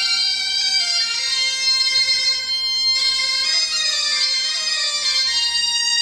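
Bombarde and biniou kozh, a Breton reed-instrument pair, playing a slow air together over the biniou's steady drone. The bombarde drops out for a moment around the middle while the biniou carries on.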